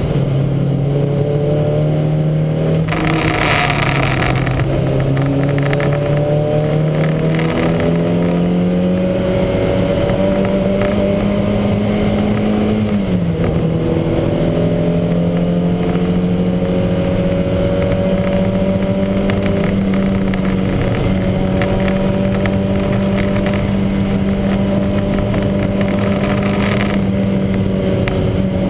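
Lancia Montecarlo's twin-cam four-cylinder engine racing under load, its pitch climbing slowly and dropping sharply at an upshift about halfway through, then holding steady. The car is running with a heavy misfire.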